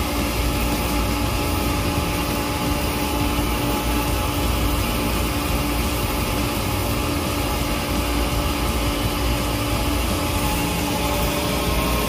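Trane RTAA air-cooled chiller's screw compressor running, a steady drone with a hum of several steady tones. The compressor is staying loaded when it should be backing off at set point, the sign of an unloader slide valve stuck so the chiller cannot unload.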